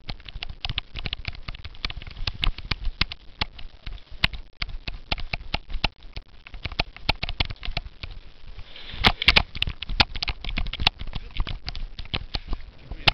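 Cyclo-cross bicycle being ridden over rough ground, rattling and knocking in quick irregular clicks over a low rumble, with a thicker burst of clatter about nine seconds in.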